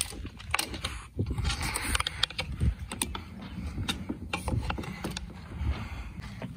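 A run of irregular sharp clicks and knocks over a low, uneven wind rumble on the microphone.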